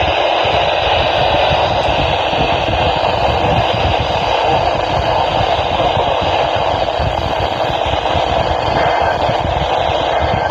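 Emergency Alert System attention signal: a loud, steady, harsh tone that sounds rough and noisy rather than clean, with a low rumble underneath.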